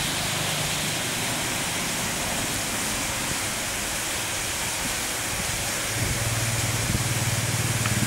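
Steady outdoor hiss, with a low droning hum joining about six seconds in.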